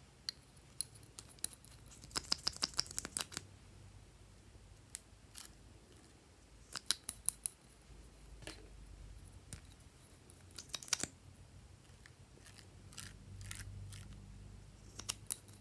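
Small plastic glitter-glue bottles and their caps handled close up: groups of sharp plastic clicks and taps, with a quick run of them about two to three seconds in and shorter groups later, as the caps come off and the bottles are squeezed.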